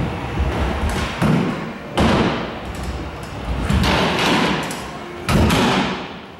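Stunt scooter's wheels rolling over skatepark ramps, with several heavy thuds as the scooter hits the ramps, the loudest about two seconds in and again a little after five seconds.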